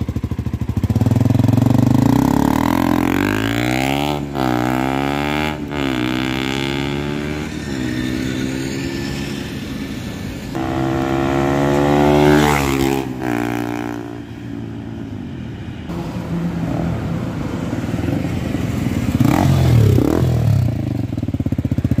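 KTM RC 200 single-cylinder engine through a custom bend pipe and aftermarket exhaust with a dB killer, accelerating hard. The exhaust note climbs in pitch, drops at each upshift, climbs again and then falls away as the throttle eases.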